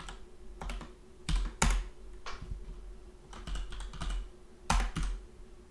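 Typing on a computer keyboard: irregular key presses with a few louder strokes, stopping shortly before the end.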